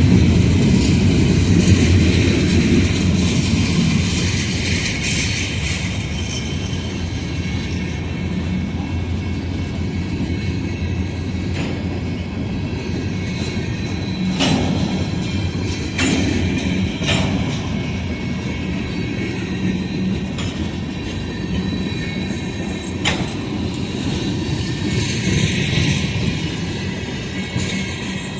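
Freight train cars rolling past: a steady rumble of wheels on rail that eases somewhat in the first few seconds, with a few sharp knocks from the wheels and couplers partway through.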